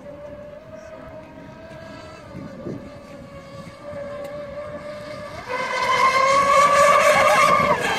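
Radio-controlled speedboat's motor running flat out with a steady high whine. About five and a half seconds in it gets much louder and rises in pitch as the boat comes near, then begins to fade at the end.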